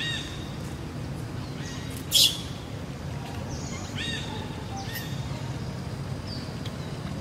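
A baby macaque giving short, high chirping squeaks a few times, each a quick note that dips slightly in pitch. A single brief, loud hiss-like burst comes about two seconds in.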